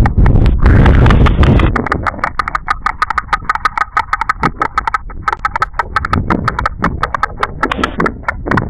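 White storks clattering their bills: a long, rapid run of dry wooden clicks, about eight to ten a second. A loud rush of low noise covers the first two seconds.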